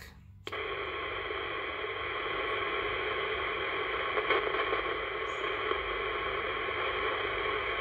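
Steady static hiss from a 1970s Royce CB radio's speaker as it listens for a reply with no station coming in. The hiss cuts in suddenly about half a second in, when the transmission ends and the receiver opens.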